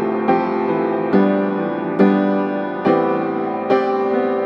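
Background music on a keyboard, with chords struck a little more than once a second and ringing between strikes.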